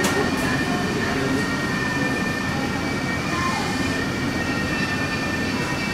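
Steady ambience of a large model railway exhibition hall: an even hum with a constant thin whine, and a faint murmur of visitors' voices.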